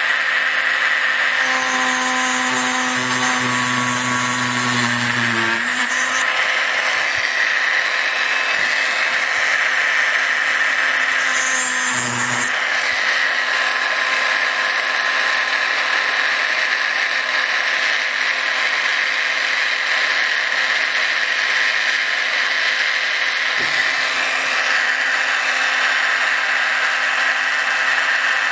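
Small mains-powered rotary tool running at high speed as its cutter works into brass inlay, a steady high whine. Extra tones come and go from about two to six seconds in and again briefly about twelve seconds in.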